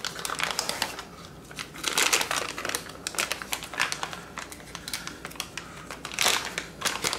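Clear plastic bag crinkling and rustling in the hands as it is handled and opened, with scrapes and taps of a small cardboard box.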